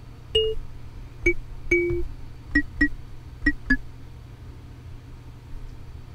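Short plucked kalimba-like notes from a Synthstrom Deluge playing a synth patch made from a kalimba sample, sounding one at a time at different pitches as notes are entered on its pad grid: about seven in the first four seconds. A steady low hum lies underneath.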